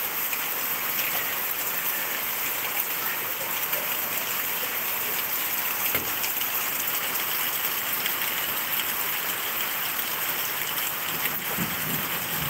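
Heavy rain falling steadily on leaves and a paved street, an even, unbroken hiss.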